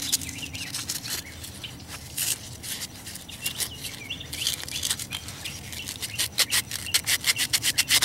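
Folded emery cloth rubbed quickly back and forth across the two metal electrode rods of a gas heating unit's high-voltage spark igniter, a scratchy rubbing that gets faster and more even near the end. The rods are being cleaned of carbon built up by the spark.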